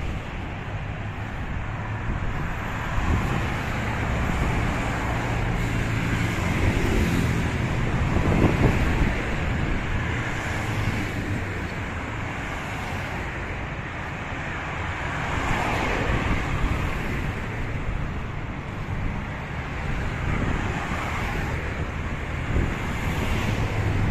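Road traffic on a city street: a steady rumble of engines and tyres from passing cars, swelling loudest about eight seconds in and again around sixteen seconds.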